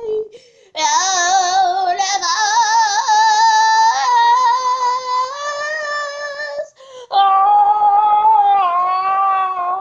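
A child singing long, high held notes with a wavering vibrato, in phrases broken by two short pauses, just after the start and about seven seconds in.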